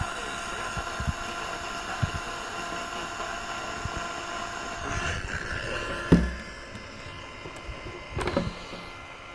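A steady electronic buzz made of several tones over a hiss, cutting off about five seconds in. About a second later comes a loud thump, and a few more knocks of the device being handled follow near the end.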